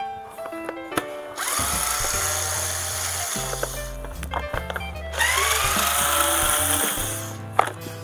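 Cordless electric screwdriver running in two bursts of about two seconds each, spinning up with a rising whine and then running steadily as it backs screws out of a plastic box fan housing. Background music plays throughout.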